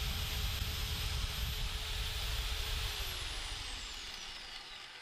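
Drill press running with a steady whine while boring a pilot hole in birch plywood. About three seconds in its motor is switched off and winds down, the whine falling in pitch as it fades.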